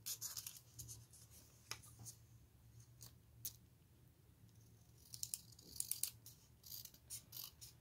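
Small pink-handled scissors cutting paper: faint snipping, a few separate snips in the first few seconds, then a quicker run of snips from about five seconds in.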